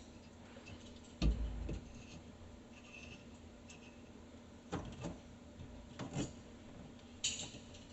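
A few scattered knocks and clicks from hands working the shut-off valves under a sink, one with a low thump about a second in.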